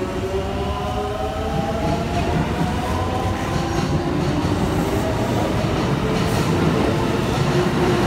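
Kintetsu 3200-series electric train pulling out. Its traction motors whine in several parallel tones that rise in pitch over the first three to four seconds and then hold steady, over a growing rumble of wheels on the rails.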